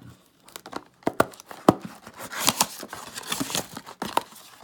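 A trading-card blaster box and its wrapped packs being opened by hand: a few sharp snaps about a second in, then tearing and crinkling of the box and pack wrappers.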